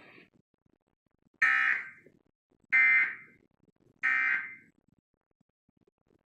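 Emergency Alert System end-of-message signal: three short bursts of warbling digital data tones about a second apart, the coded 'NNNN' that closes the alert.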